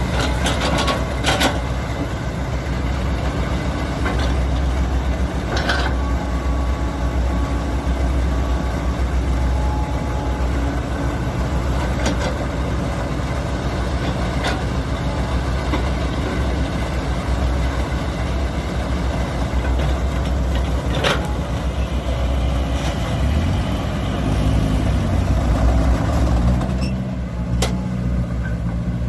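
Diesel engine of an earthmoving machine running steadily, with a few sharp metallic clanks here and there. Near the end the engine note shifts.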